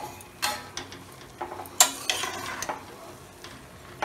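Steel spoon scraping against an aluminium pressure cooker as sliced mushrooms are stirred into masala paste. There are a few scraping strokes, the loudest about two seconds in, and a quieter stretch toward the end.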